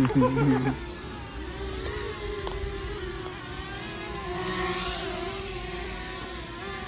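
DJI Mavic Mini drone's propellers humming steadily in flight, the pitch wavering slightly as the motors adjust.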